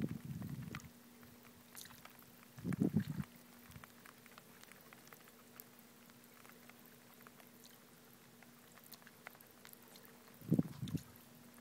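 Quiet lakeshore ambience: small ripples lapping and ticking among the shoreline rocks over a steady low hum. Three short low rumbles come at the start, about three seconds in, and near the end.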